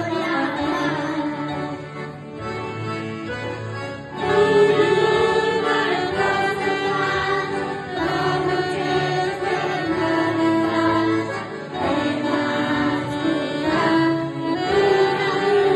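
Small children singing a Christian praise song into microphones, accompanied by a saxophone melody, a Yamaha Tyros keyboard and an accordion. The music gets louder about four seconds in.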